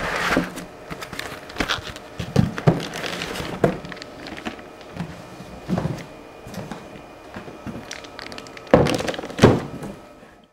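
Unpacking sounds: foam packing blocks pulled off and a plastic-wrapped rack-mount PBX appliance lifted out of a cardboard box, with the plastic bag crinkling, cardboard rustling and scattered thunks. The loudest handling, two knocks a fraction of a second apart, comes about nine seconds in.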